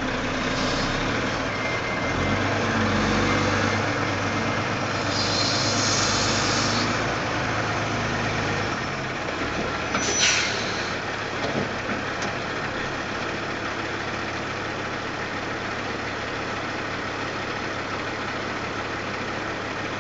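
Diesel semi truck's engine pulling a loaded B-train grain trailer slowly forward, louder for the first several seconds, then idling steadily once stopped. A sharp hiss of the air brakes comes about ten seconds in as the truck stops.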